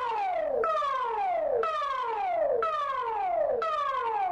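Singapore Public Warning System's Important Message Signal: a siren tone that drops steeply in pitch, repeated about once a second.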